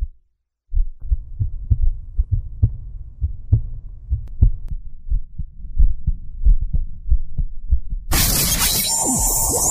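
Heartbeat sound effect: a fast run of low, dull thumps. About eight seconds in it gives way to a loud burst of noise with a rising whistle, like a jingle's sweep.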